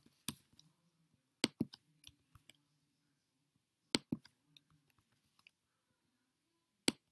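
Quiet computer mouse clicks and keyboard keystrokes while text is selected and edited, coming in short clusters of sharp clicks with pauses between.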